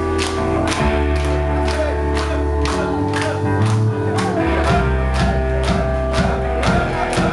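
Live band music with a steady beat, about two strong strokes a second, over held bass notes.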